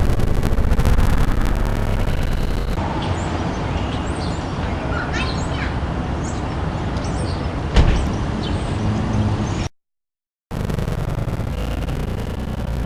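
Steady street traffic noise with a few short bird chirps in the middle and one sharp click about eight seconds in; the sound cuts out for about a second near the end.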